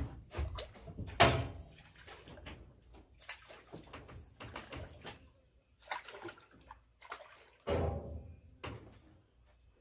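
A hooked tilapia thrashing at the water's surface while a landing net is pushed in to scoop it out: irregular splashes, the loudest about a second in and again near eight seconds.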